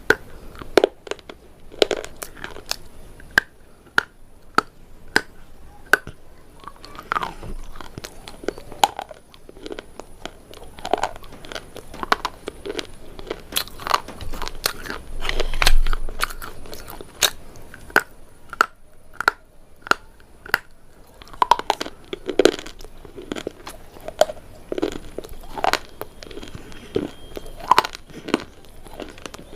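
Close-up biting and chewing of something hard and dry, not soaked in water: sharp crunching cracks at irregular intervals, about one or two a second, between softer chewing.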